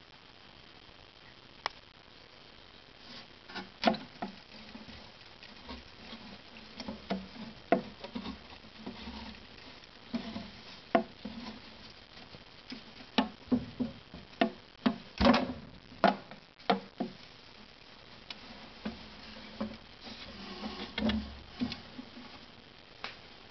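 House mouse scrabbling and scratching about: an irregular patter of light clicks and scrapes, busiest through the middle and picking up again near the end.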